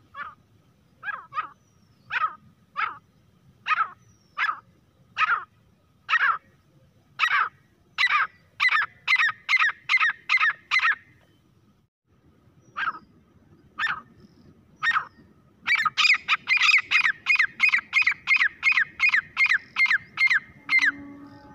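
Grey francolin calling: a harsh call repeated note after note, slow at first and quickening to about two notes a second before breaking off about halfway through. After a short pause it starts again and runs into a louder, faster series of about four notes a second that stops just before the end.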